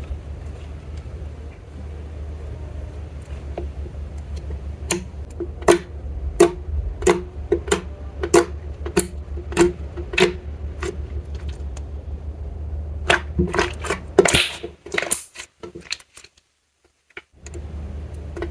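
Slime being worked by hand, giving sharp sticky clicks and pops at a steady pace of roughly one every half second or so, over a steady low hum. The clicks come thicker for a moment, then the sound cuts out briefly near the end.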